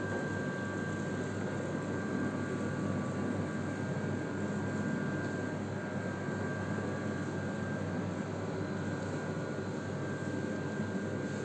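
A power tool's motor running steadily, an even whir with a faint high whine.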